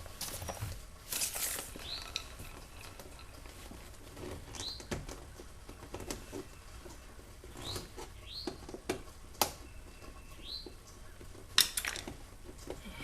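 Scattered clicks, taps and rustling of hands and tools working screws and trim out of a car door panel, with two sharp clicks as the loudest moments late on. Short rising bird chirps come now and then in the background.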